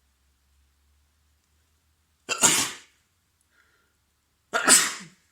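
A man sneezing twice, about two seconds apart, each a sharp blast of breath through the nose and mouth; he has a head cold.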